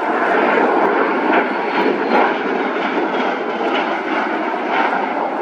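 CV-22 Osprey tiltrotor flying overhead with its nacelles tilted up. Its two Rolls-Royce AE 1107C turboshaft engines and proprotors make a loud, steady noise.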